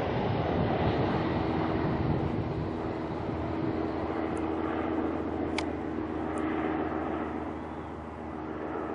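Propeller aircraft engine droning steadily and growing gradually fainter as it moves away.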